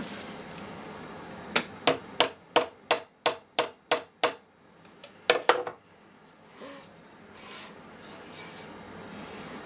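A Tecumseh lawn mower engine, its head off, being turned over by hand in a quick series of short scraping strokes, about ten in a row, then two more a second later. The valves barely move as it turns, a sign of sticking valves.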